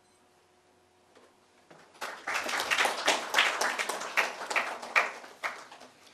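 A small audience applauding, starting about two seconds in after a brief hush and dying away near the end.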